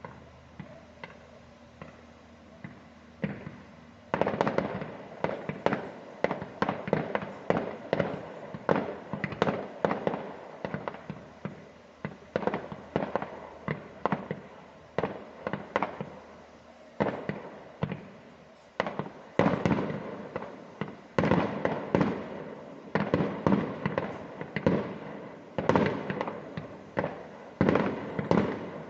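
Fireworks exploding in quick succession: a few single bangs at first, then a dense barrage of overlapping bangs from about four seconds in, easing briefly after halfway before building again.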